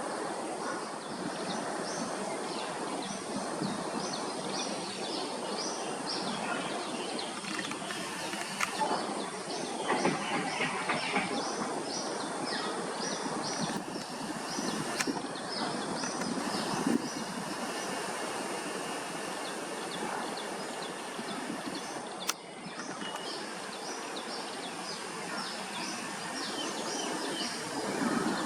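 Birds chirping: many short, high calls repeating irregularly over a steady background of outdoor noise. The background briefly dips about two-thirds of the way through.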